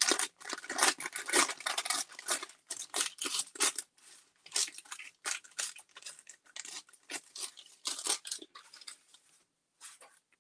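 Thin paper crinkling and rustling as it is handled, then rubbed flat onto an art-journal page. It is a run of short, dry rustles, busiest at first and thinning out after about four seconds.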